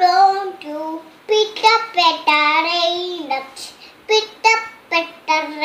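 A small child singing a nursery rhyme in short, high phrases, with a brief pause a little past halfway.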